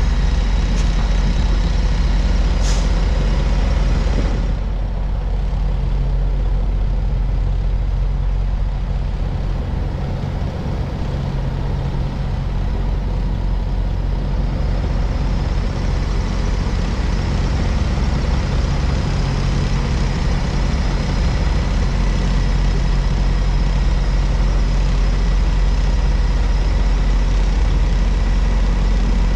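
Semi-truck diesel engine running steadily at low speed while the rig maneuvers, a continuous low rumble. A brief high hiss comes about three seconds in.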